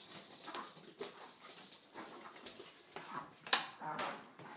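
Small dog whimpering softly, with scattered light clicks and one sharper click about three and a half seconds in.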